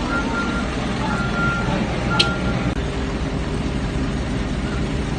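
Four short electronic beeps at one high pitch, unevenly spaced, over a steady rumbling noise. The beeps stop a little over halfway through, and a sharp click comes just after two seconds in.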